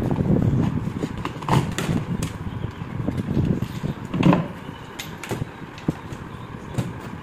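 Pieces of wood and tools handled on a worktable: irregular knocks, clicks and clatter, the loudest knock about four seconds in.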